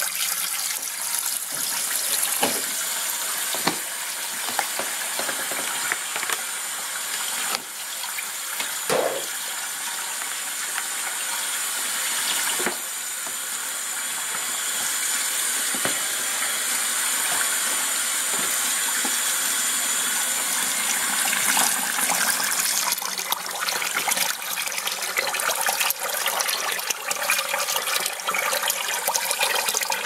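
Water running steadily from a hose into the wash tub of a Panda B45 twin-tub portable washing machine, filling it over a load of clothes. There are a few light knocks, and the rush grows rougher and more uneven in the last third.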